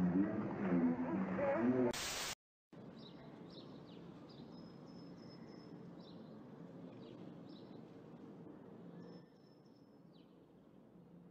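Birds chirping faintly in short high calls over a steady outdoor hiss. At the start, people's voices, cut off about two seconds in by a brief loud burst of noise.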